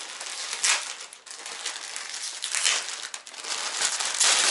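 Clear plastic packaging crinkling and rustling as a plastic-wrapped bundle of clothes is handled and pulled open, louder near the end.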